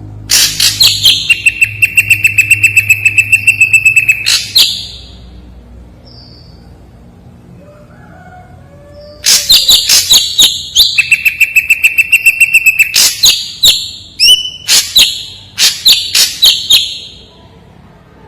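Ashy drongo singing in two loud bouts. Each is a rapid run of sharp notes, about five a second, partly over a steady held whistle, and a quieter pause of several seconds lies between them.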